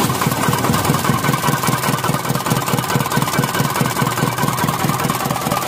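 Isuzu Elf's 4HG1 four-cylinder diesel engine running with a fast, regular low pulse and misfiring. The misfire is traced to faulty injectors with clogged nozzle tips.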